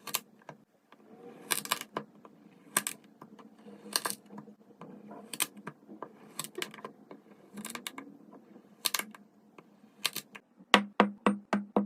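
A knife cutting through kinetic sand: sharp clicks about one a second, with faint scraping between them. Near the end the cuts speed up into a quick run of about four clicks a second.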